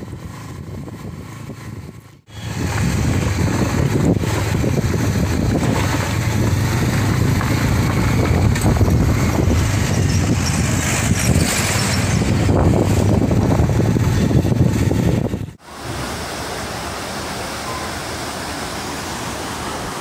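Wind rushing over the microphone and road noise on a moving scooter ride: a loud, steady rumbling rush that cuts in about two seconds in and stops abruptly near the end, after which a quieter steady rush follows.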